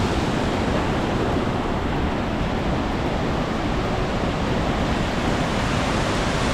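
Waterfall rushing close by: a steady, loud, even noise of falling water.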